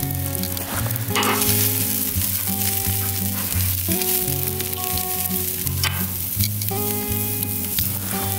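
Ribeye steak sizzling on a grill grate over a wood fire, a steady frying hiss, with background music playing over it.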